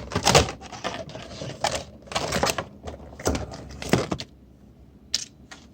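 Cardboard collection box being handled and opened by hand: a quick run of clicks, scrapes and rustles, easing off about four seconds in, with one more click near the end.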